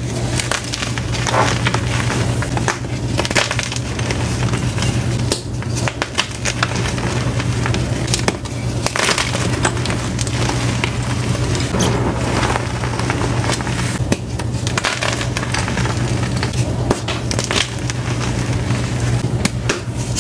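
Blocks of gym chalk crunching and crumbling as hands squeeze and break them apart: a dense, continuous run of crackles and crunches, over a steady low hum.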